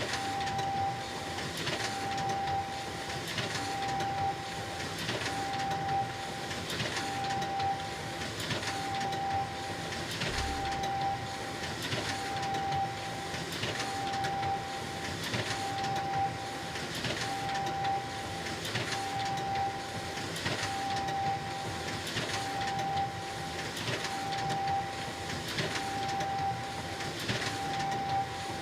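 Photocopier running continuously: a steady mechanical whir with a repeating cycle about every 1.7 seconds, each cycle bringing a short tone and a brief swish.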